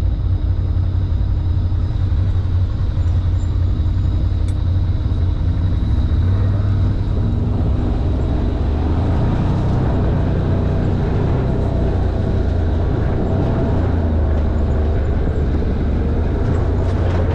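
Side-by-side off-road vehicle's engine running steadily under way on a dirt track, with a constant low drone and rattle from the open cab.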